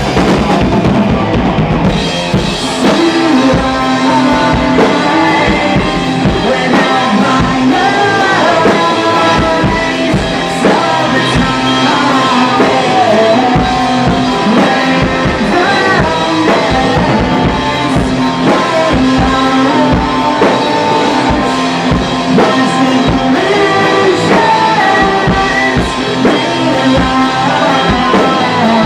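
Heavy metal band playing live in rehearsal: a drum kit with rapid bass drum strikes under loud electric guitars.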